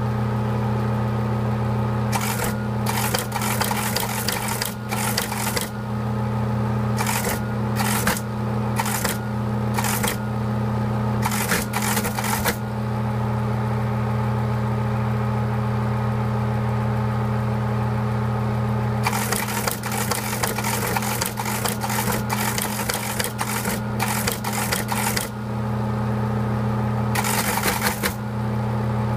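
Teletype Model 15 teleprinter clattering in quick runs as a message is typed and printed, over the steady hum of its running motor. The clatter stops for several seconds in the middle, then comes back twice more.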